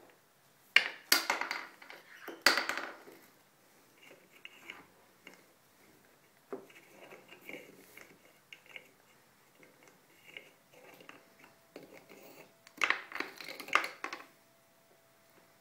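An African grey parrot handling the plastic and wooden rings and caps of a stacking toy, making clattering knocks about a second in, again near three seconds and around thirteen seconds, with small clicks and taps in between.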